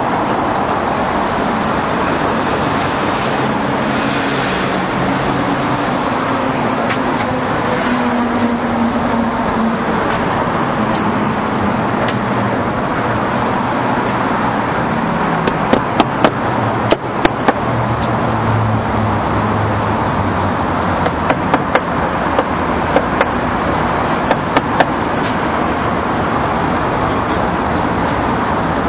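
Steady city street traffic noise, with a run of sharp taps partway through and a second run later on: a small hammer tapping at a wooden door.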